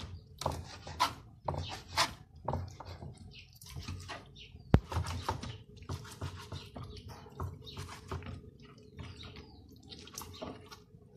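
Kitchen knife cutting beef steak into small pieces on a plastic cutting board: irregular taps of the blade against the board, with one sharper click about five seconds in.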